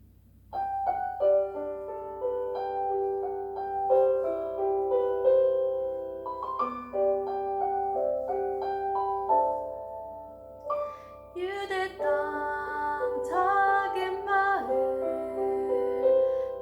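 Piano introduction to a Christmas carol medley, starting about half a second in; about eleven seconds in, voices come in singing over the piano.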